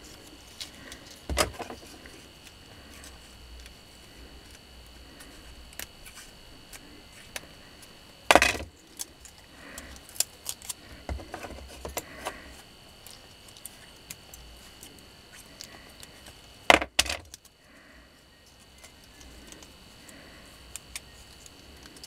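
Hands handling a stripped vacuum-cleaner motor armature with paper slot insulators: light clicks and rustles, with sharp clacks about a second in, near the middle, and a double clack near the end.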